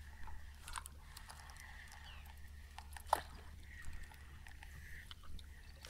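Quiet open-water ambience on a small fishing boat: a steady low hum with a few faint light clicks and one sharper tick about three seconds in.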